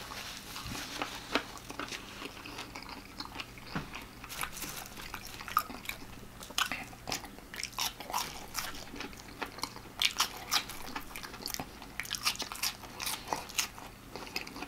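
A person chewing and biting into extra crispy fried chicken, with irregular sharp crunches of the crust throughout.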